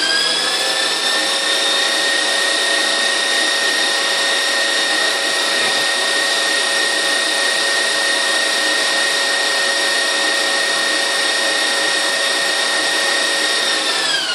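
KitchenAid 6-quart bowl-lift stand mixer whipping egg whites in its glass bowl: the motor whine rises in pitch as it comes up to speed, runs steady, and starts to wind down at the very end.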